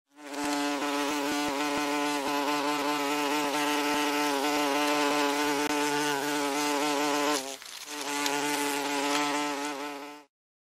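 Wasp buzzing: one steady, even buzz that starts abruptly, dips briefly about seven and a half seconds in, and cuts off near the end.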